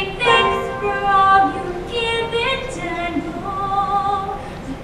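A woman singing a stage-musical song, holding long notes, with a wavering vibrato on a held note near the end.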